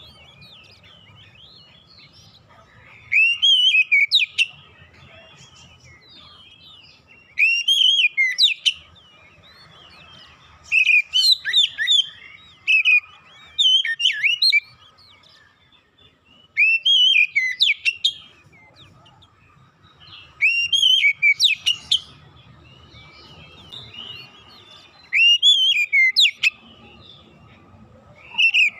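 Male Oriental magpie-robin (kacer) singing in full song: about eight short, loud phrases of fast rising and falling whistles, each one to two seconds long, with brief pauses between them.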